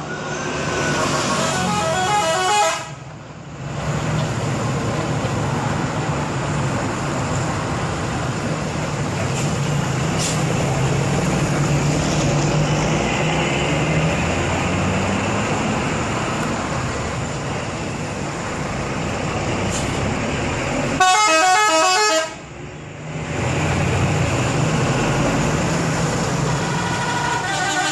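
Indonesian bus 'telolet' multi-tone horns playing quick melodic runs of stepped notes, once about two seconds in and again about 21 seconds in, each cut off abruptly. Between them a bus engine runs steadily with traffic noise.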